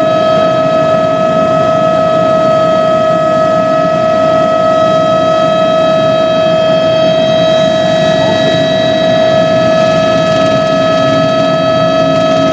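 Helicopter heard from inside the cabin in steady flight: a loud, unchanging high turbine whine with several overtones above a dense, rushing engine-and-rotor noise.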